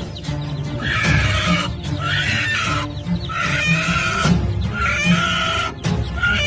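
Harsh, wavering bird squawks, about one a second, from the confrontation between a hen and an eagle, over background music with a steady beat.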